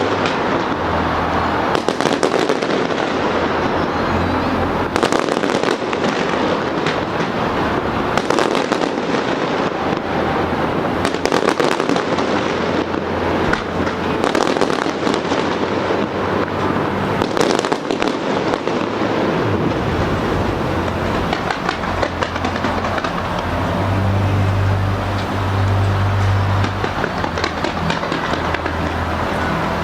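Aerial fireworks bursting in quick succession with bangs and crackling over a dense rumble of explosions. About two-thirds of the way through the bangs thin out and a steady low hum comes to the fore.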